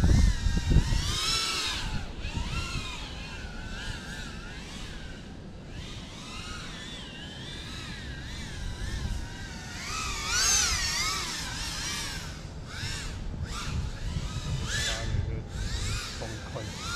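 FPV quadcopter's motors whining, the pitch rising and falling continually as the throttle is worked.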